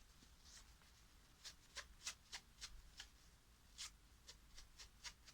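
Faint, irregular scratchy strokes, two or three a second, as a tap is cleaned by hand of swarf, over a low steady hum.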